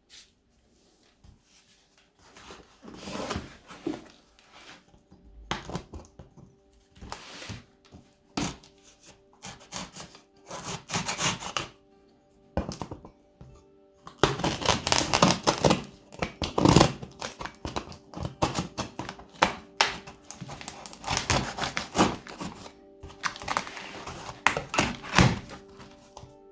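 Cardboard box and packaging being handled and opened: irregular rustling, crinkling and tearing with occasional thunks, loudest about halfway through.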